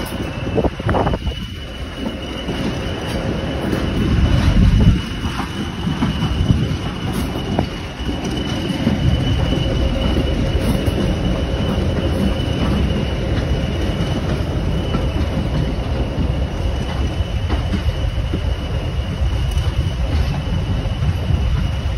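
Heritage train running along the track with a continuous low rumble and a steady high-pitched wheel squeal.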